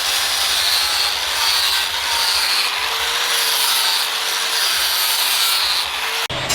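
Steady abrasive rubbing in repeated strokes, a hand tool working the surface of a knife or its handle. It stops abruptly shortly before the end.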